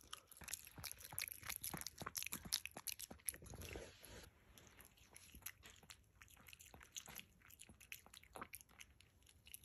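Capuchin monkey chewing fruit close to the microphone: a run of faint short crunchy chewing clicks, busiest over the first four seconds and then sparser.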